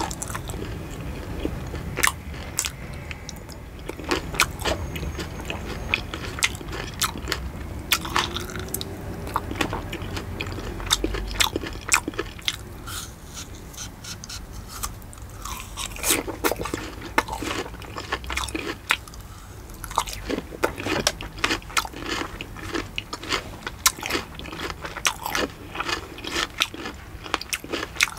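Close-up eating sounds: crisp bites and steady wet chewing of fruit pieces pulled off skewers, then of fried chicken near the end, with many sharp, irregular crunches.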